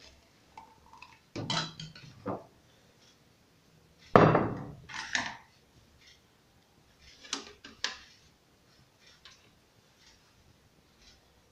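Kitchen containers being handled and set down on a tiled counter: a few separate clatters and knocks, the loudest about four seconds in.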